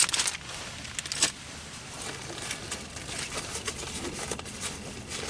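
Rustling and crinkling of a plastic zip bag and backpack fabric as gear is handled, with a sharp click a little over a second in.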